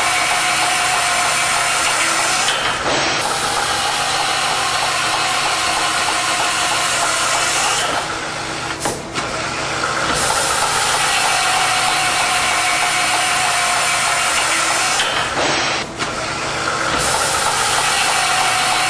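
CNC beam drill spindle running a 13/16-inch Ocean Penetrator drill bit through 3/8-inch structural steel: a loud, steady drilling noise with a held tone. It dips briefly three times, about seven seconds apart, as each hole finishes and the drill moves to the next.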